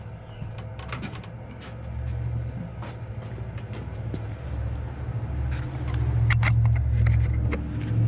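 Ford F-150 under-bed spare tire hoist being cranked down with the jack rod: a low grinding hum that grows louder, with scattered metallic clicks and knocks as the cable pays out.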